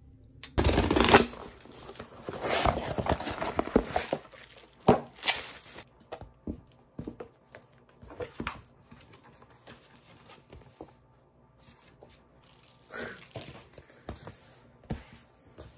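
Packaging being torn open and crinkled for several seconds, then quieter rustling and light taps as a diary and sticker sheets are handled on a table.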